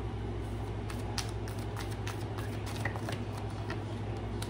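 A tarot deck being shuffled by hand: light, scattered card flicks and taps over a steady low hum.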